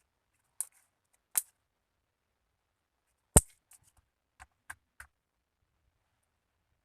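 Slime being handled and making sharp pops and clicks: about seven scattered snaps, the loudest about three and a half seconds in, with quiet between them.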